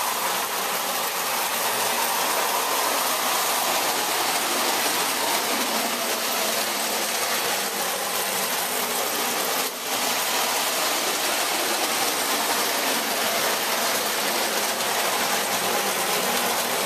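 Several electric toy trains running together on three-rail tinplate track: a steady mix of motor and wheel noise, with a brief dip about ten seconds in.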